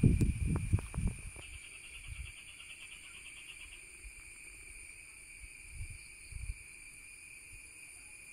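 Insects droning steadily, a few fixed high tones held without a break, with a fast pulsing trill joining for a couple of seconds. A few low thumps sound in the first second or so.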